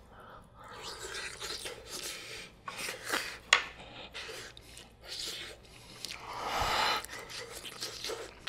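A man huffing and blowing air in and out of his mouth around a mouthful of scalding-hot steamed egg to cool it, in short breathy puffs. A sharp click comes about three and a half seconds in, and a longer, stronger exhale a little after six seconds.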